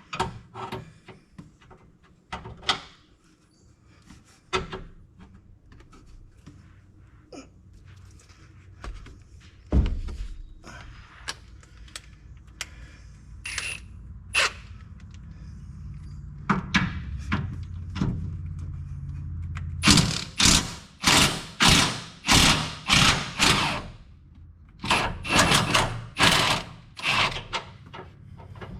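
Socket ratchet being worked on the 18 mm bumper-bracket through-bolts: two runs of ratcheting strokes, about two a second, in the second half, over a low steady hum. Before that, scattered clinks and knocks of tools being handled.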